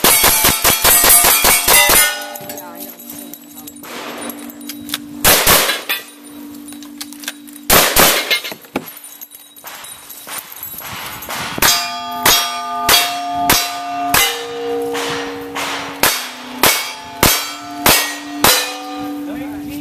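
Gunshots on steel targets, each hit followed by a clang and a ringing tone from the plate. A quick string of rifle shots comes in the first two seconds, two single loud shots come in the middle, and a second string of about ten evenly paced shots follows in the latter half.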